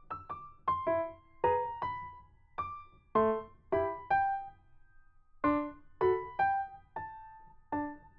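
Background music: a gentle keyboard melody of single struck notes, each fading away, with a short pause about five seconds in.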